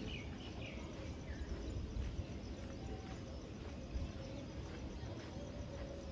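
Outdoor ambience: birds chirping over a steady low rumble, with faint knocks about two and four seconds in.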